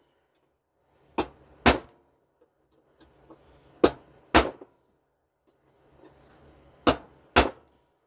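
Hammer striking a steel punch to peen over the rivets of a replacement chainsaw bar nose tip, backed by an axe head as an anvil: sharp metal-on-metal blows. Six blows in three pairs, about half a second apart within each pair and about three seconds between pairs.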